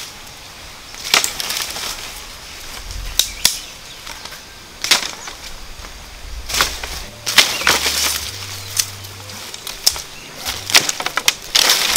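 Leafy undergrowth rustling and swishing as brush is cut and pushed aside, with several sharp cracks of twigs and stems snapping or being struck.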